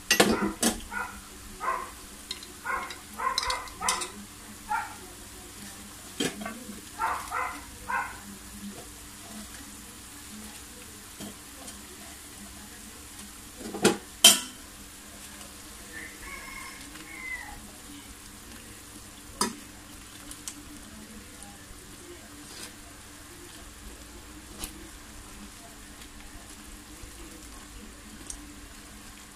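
Gravy simmering and sizzling in a metal wok while a ladle stirs it and knocks against the pan, with a loud clank about halfway through as greens are added. A run of short pitched sounds comes in the first few seconds.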